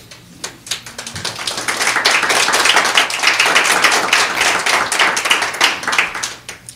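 Audience applauding: a spread of handclaps that builds up about a second in, holds for several seconds, and dies away near the end.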